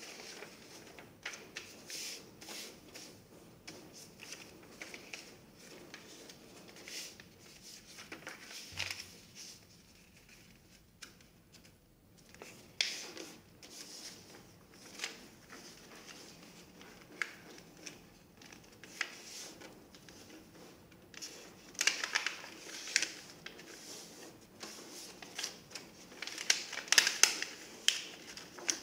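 A sheet of paper being folded and creased by hand on a wooden tabletop: scattered short rustles and scrapes, louder and more frequent in the last third.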